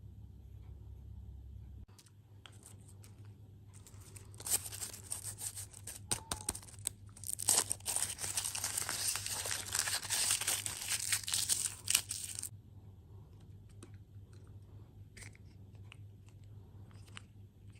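Crinkly plastic snack packaging being torn open and crumpled by hand: a dense crackling rustle of many small clicks for several seconds in the middle, stopping suddenly.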